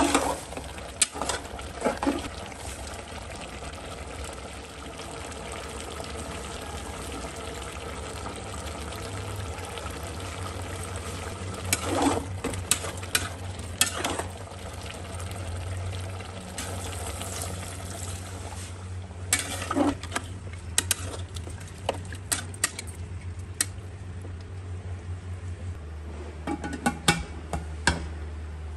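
Metal spatula stirring and scraping mutton curry in an aluminium pressure cooker, with sharp knocks against the pot at intervals over a steady low simmering sizzle. A cluster of metal clanks near the end comes as the lid is put on the cooker.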